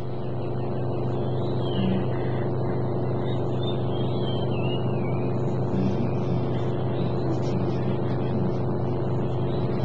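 Vehicle engine running with a steady, even low drone, with a faint wavering high tone over it in the first half.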